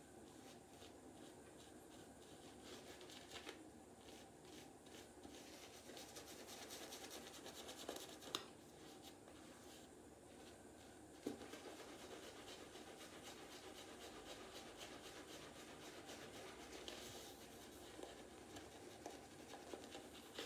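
Simpson Chubby 2 badger-hair shaving brush scrubbing a thin, watery soap lather over stubble: a faint, continuous scratchy rubbing, with two sharp ticks about eight and eleven seconds in.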